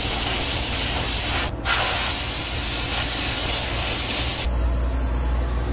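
Sandblasting cabinet's blast gun stripping paint and rust off a steel engine valve cover: a loud, steady hiss of air and abrasive that breaks off briefly about one and a half seconds in. The hiss stops about four and a half seconds in, leaving a low hum.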